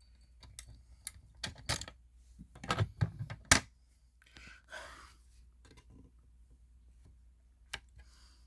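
Sharp clicks and light knocks from handling the fire alarm demo board. The loudest click comes about three and a half seconds in, a soft rustle follows about a second later, and one more click comes near the end.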